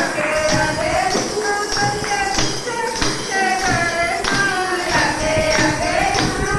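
Bhajan kirtan music: a sung devotional melody with long held, bending notes over hand percussion keeping a steady beat.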